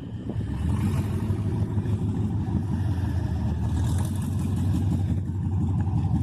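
2017 Chevrolet Camaro SS's 6.2-litre LT1 V8 idling steadily. It is running effectively open header, with the catalytic converters gutted.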